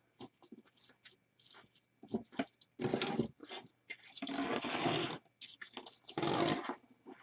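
A flocked artificial evergreen wreath laden with ribbon, picks and ornaments being handled and turned around on a cutting mat. Short rustles and clicks come first, then three longer scraping rustles about three, four and a half, and six seconds in, the middle one the longest.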